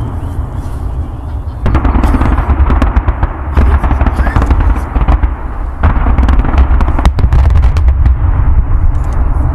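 Fireworks display: a dense barrage of rapid bangs and crackling over a constant low rumble, with a louder single bang about seven seconds in.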